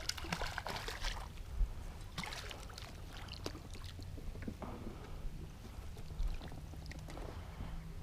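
Water splashing and small knocks and rattles of handling gear on a small fishing boat, busiest in the first second, over a steady low rumble of wind on the microphone; a faint steady hum comes in about five seconds in.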